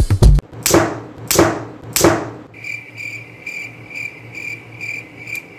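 Edited-in comic sound effects: a heavy thud at the start, three falling whooshes over the next two seconds, then a cricket-chirping effect, about two chirps a second, for the last three seconds.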